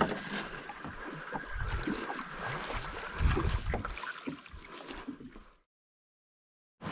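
Water and wind noise aboard a small fishing boat at sea, with irregular low thumps and a faint steady whine. The sound cuts off to dead silence for about a second near the end.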